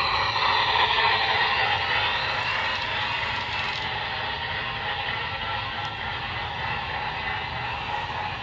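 Sound system of a Broadway Limited Imports Big Boy model steam locomotive playing its running steam sound through the model's small speaker as it laps the track: a steady, fairly loud hiss.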